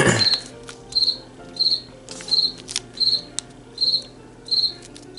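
A cricket chirping steadily, one short high chirp about every three quarters of a second. Paper is being folded and creased: there is a rustle right at the start and a few crisp ticks later.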